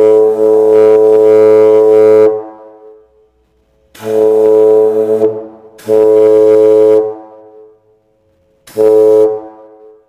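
Homemade plastic air horn sounding a loud, steady single note in four blasts. The first is already sounding and stops about two seconds in. Two more follow between about four and seven seconds, and a short last blast comes near the end.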